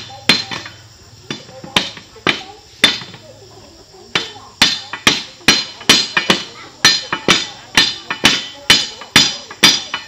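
Repeated sharp, ringing blows of a hammer on metal, roughly two a second, with a break of about a second near the middle.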